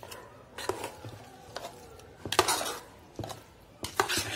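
Metal spoon scraping and knocking against a metal pot while stirring thick, wet mutton and masala, in irregular strokes roughly once a second, the loudest a little past halfway.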